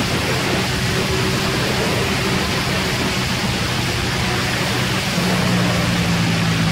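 Loud wind rush on a motorcycle-mounted camera at track speed, with the Ducati Panigale's engine droning steadily underneath. The engine note grows louder about five seconds in.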